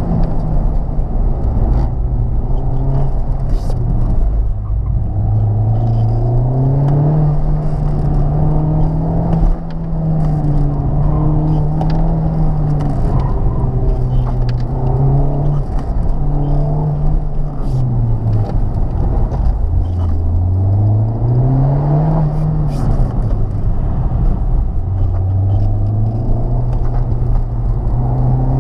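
Honda Civic Type R's turbocharged four-cylinder engine being driven hard, its pitch climbing under throttle and falling again over and over, with a few quick drops like gear changes.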